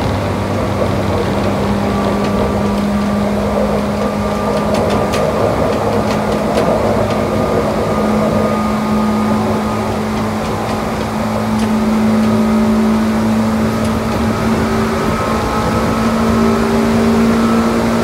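Tokyu 8500 series electric train running at high speed, its traction motors and gears giving a loud steady whine that rises slowly in pitch as the train keeps accelerating toward its 110 km/h top speed. A few light clicks come through between about four and seven seconds in.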